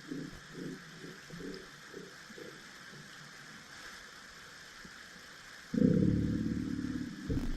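Underwater recording of an unidentified sound: a low, rapid pulsing at about four pulses a second fades out, and about six seconds in a louder low rumble sets in for about a second and a half.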